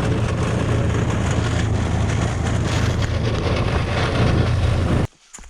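Golf cart running while driving: a steady low hum with a rush of noise over it, cutting off suddenly about five seconds in.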